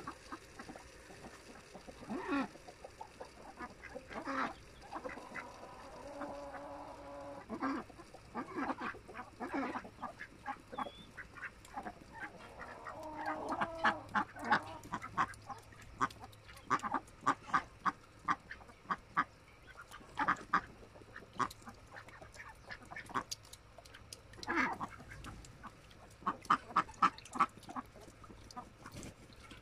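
A flock of domestic ducks, mostly Indian Runners, quacking in many short calls that come in quick runs, with a longer drawn-out call now and then.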